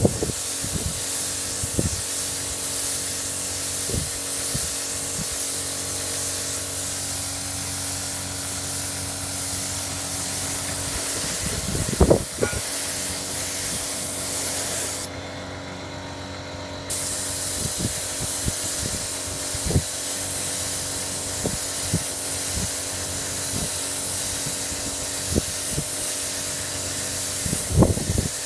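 Air spray gun hissing steadily as it sprays coating paint onto a ceramic tile. The hiss stops for about two seconds midway, then resumes. A few knocks sound between passes.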